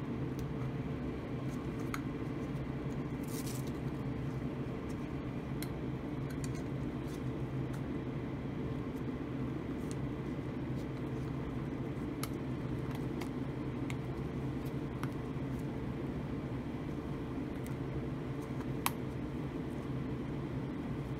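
Blower of a homemade laminar flow hood running with a steady hum. Faint clicks and crinkles from a plastic petri dish being handled and sealed with parafilm, with one sharper click near the end.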